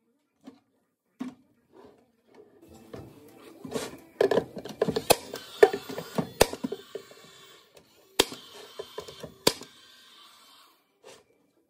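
Cordless brad nailer firing four sharp shots, a second or more apart, nailing a plywood drawer onto its slides. Rattling and wooden knocks come before them as the drawer is moved on its metal slides and positioned.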